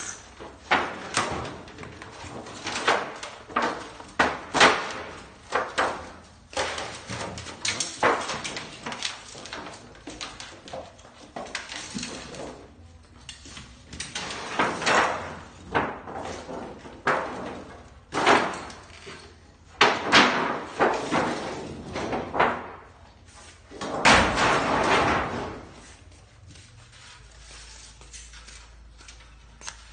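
Repeated metal bangs, clanks and knocks from a scrap refrigerator's casing and parts being hammered, pried and pulled apart, with a longer rough noise about three quarters of the way through; the last few seconds are quieter.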